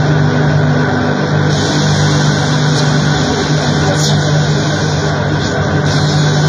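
Harsh noise music: a loud, dense, steady drone with a strong low hum, and a band of high hiss added about a second and a half in.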